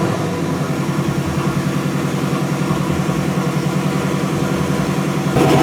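Car engine idling just after a cold start, running with a steady, even pulse, then getting louder about five seconds in.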